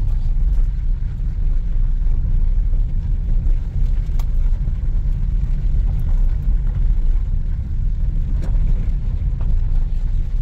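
Car driving: a steady low rumble, with a couple of sharp knocks about four seconds in and again near nine seconds.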